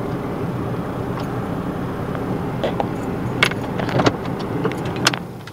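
Steady motor-vehicle noise, a low rumble, with a few sharp clicks over the last two seconds.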